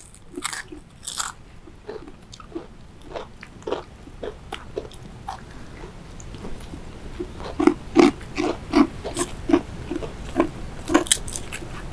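Close-up chewing and crunching of crisp food eaten by hand: a string of short crunchy bites that come faster and louder in the second half.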